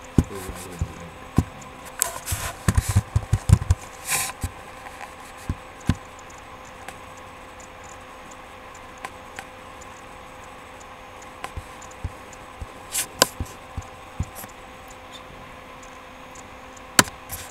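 Scattered clicks and knocks, thickest between about two and four seconds in, with a few more near the end, over a steady faint hum.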